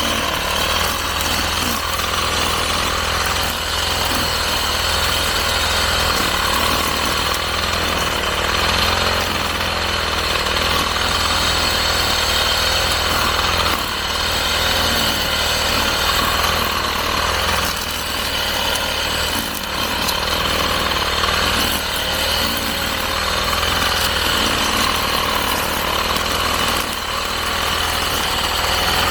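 Petrol brush cutter running steadily at high speed while cutting grass, its level dipping slightly now and then.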